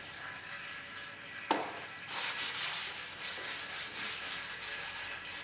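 A sharp click, then a rag or paper towel wiped briskly over the plastic engine shroud of a lawn tractor, quick repeated rubbing strokes.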